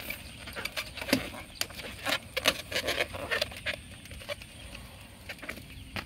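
Inflated rubber balloons let go, air rushing out of their necks in an irregular sputtering rasp. The rasp is loudest from about one to three and a half seconds in, then dies down.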